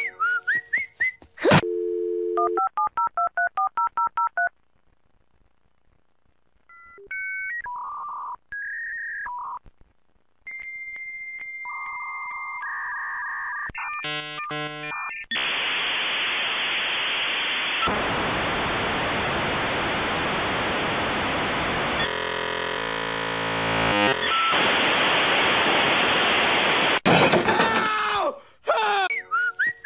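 Dial-up modem connecting: a short dial tone, a quick run of about a dozen touch-tone digits, a few steady high answer tones, then a long hissing screech of the modem handshake. Near the end comes a cartoon yell.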